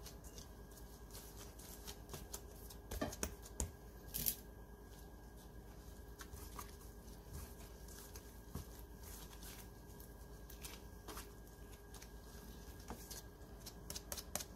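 Hands rolling and pressing soft bread dough on a wooden board: faint rustling of a plastic glove, soft slaps and scattered small clicks, with a few louder taps about three to four seconds in. Near the end the dough is patted down onto a baking pan. A faint steady hum runs underneath.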